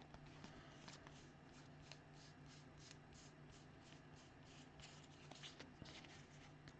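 Baseball cards being flipped through one at a time by hand: a quick, even run of faint flicks and slides, about three a second.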